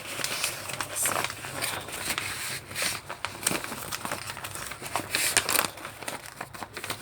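Paper crinkling and rustling in irregular bursts as vegetables are wrapped in it by hand.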